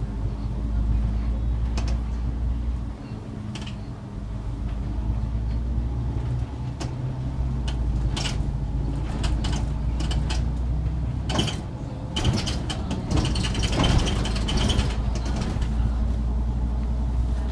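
Inside a SOR NB city bus under way: the engine drones steadily, dipping briefly a few seconds in, while the cab and body panels rattle, click and creak irregularly. The rattling is busiest for a few seconds past the middle.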